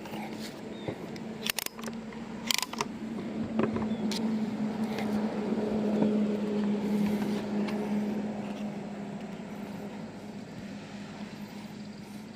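A vehicle engine running with a steady hum that grows louder toward the middle and then fades, as if passing by. A few sharp clicks come in the first four seconds.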